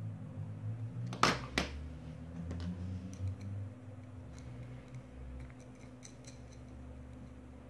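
Small metal handling sounds as a hex nut is worked onto the end of a thin copper tube: two sharp clicks a little over a second in, then a few light ticks.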